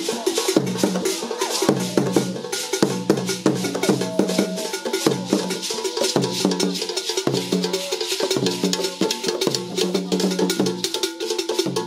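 Traditional drumming with other percussion playing a busy, steady dance rhythm, with repeated low drum notes under dense sharp strokes.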